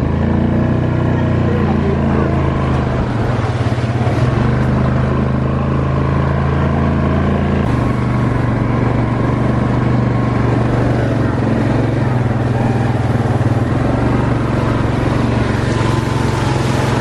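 Quad (ATV) engine running steadily while riding along a muddy, snowy trail. The engine note shifts about eight seconds in.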